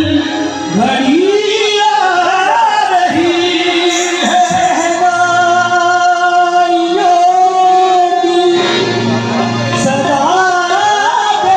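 Qawwali-style devotional singing with harmonium accompaniment: a high male voice sings bending, ornamented phrases, holds one long note for about five seconds, then breaks into runs again.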